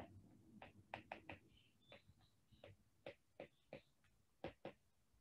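Faint stylus taps and clicks on a tablet screen during handwriting: about a dozen short, unevenly spaced ticks.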